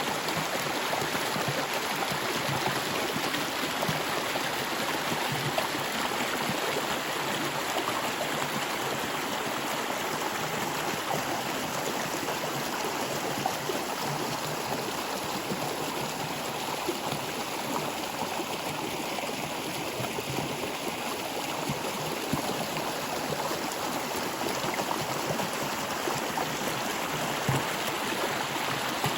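Flowing stream water, a steady rushing wash with no pauses.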